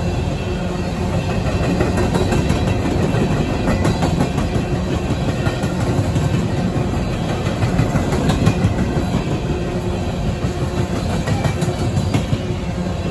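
Coal hopper cars of a freight train rolling past close by: a steady rumble of wheels on rail with clattering and scattered sharp clicks.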